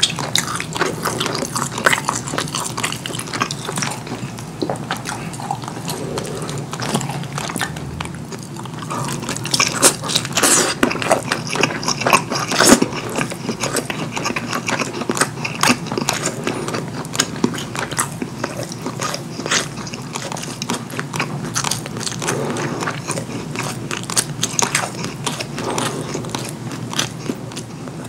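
Close-miked mouth sounds of a person eating curry food: continuous chewing and biting with many short sharp clicks, loudest about ten to thirteen seconds in.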